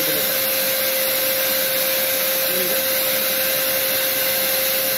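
Electric paint sprayer's blower motor running steadily with a constant whine, blowing air through a hose to a gravity-cup spray gun.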